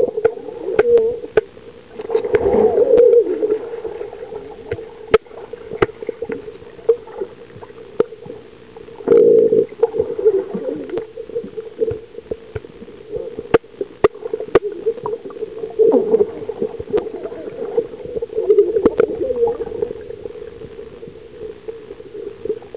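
Swimming-pool water splashing and gurgling over a steady hum, with louder surges about two and nine seconds in and again near the end, and sharp clicks now and then.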